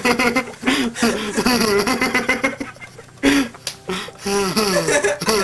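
Laughing and wordless vocal sounds from a man's voice, the pitch wavering up and down, with a sharp breath or cry a little past the middle.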